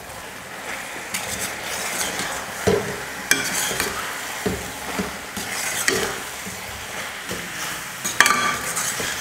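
A metal spoon stirs and scrapes mutton liver pieces through ground spices in a stainless steel kadai, with irregular scrapes and clinks against the pan. The mixture sizzles as it fries.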